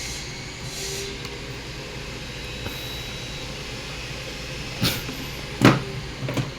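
Steady background hum, broken near the end by a few short knocks and clicks as the boiler's wiring is handled during multimeter testing, the loudest about five seconds in.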